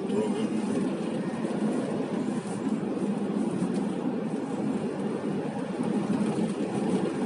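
A car driving, heard from inside the cabin: a steady rumble of road and engine noise.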